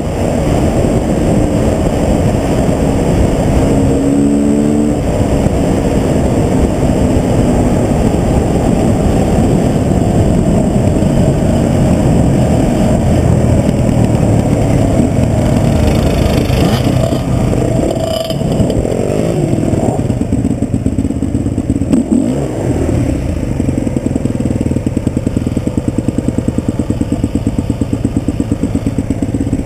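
Husqvarna TE 250's single-cylinder four-stroke engine running under way, its pitch rising and falling with the throttle and gear changes, then slowing down and settling into an even idle over the last few seconds.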